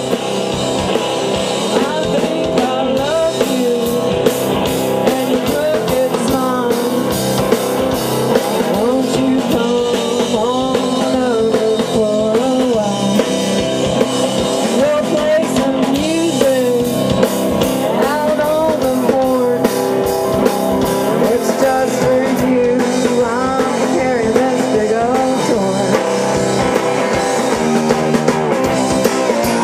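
A rock duo playing: electric guitar and drum kit, with singing.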